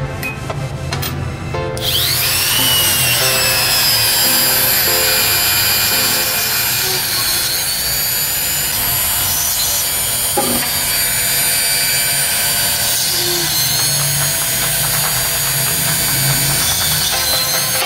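Small electric drill spinning up with a rising whine about two seconds in, then running steadily at high speed while drilling into the white plastic recoil starter pulley of a hedge trimmer.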